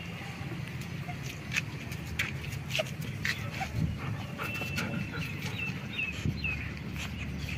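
Black German shepherd puppies suckling from their nursing mother: a run of quick, soft, irregular clicks.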